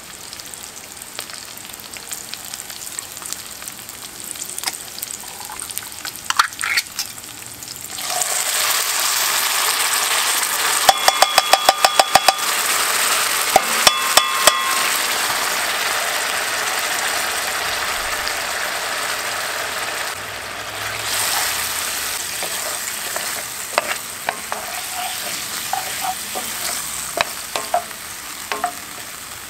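Sliced hot dogs sizzling in a cast iron skillet. About eight seconds in, canned baked beans are poured in and the sizzle jumps much louder, with two quick runs of ringing metallic rattles from the tin can against the pan. The sizzle then slowly eases while a wooden spoon scrapes and clicks, stirring.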